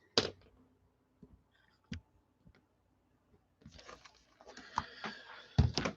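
A few scattered sharp clicks, then about two seconds of rustling handling noise and a louder knock near the end, as of things being moved about on a desk.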